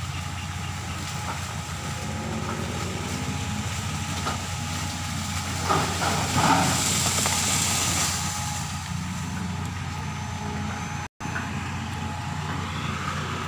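Diesel engine of a Hitachi hydraulic excavator running steadily with a low hum. A louder noisy stretch comes around six seconds in, and the sound cuts out for an instant about eleven seconds in.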